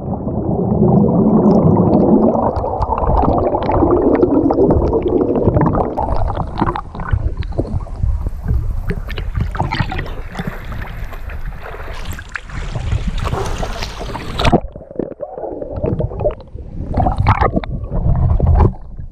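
Seawater churning with bubbles around a waterproof camera just under the surface after a swimmer's plunge, then the sea sloshing and splashing against the camera as it bobs in and out of the waves beside a catamaran hull, in broken bursts near the end.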